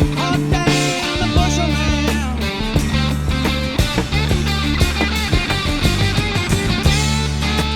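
Instrumental break of a 1970s folk-rock record: guitar over bass and a steady drum beat, with no singing.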